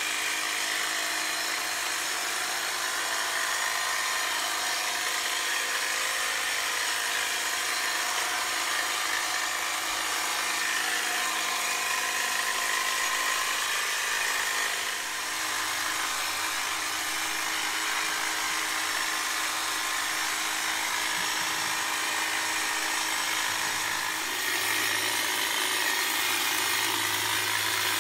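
Milwaukee M18 Fuel cordless hedge trimmer running steadily, its brushless motor whining and its reciprocating blades cutting through hedge foliage.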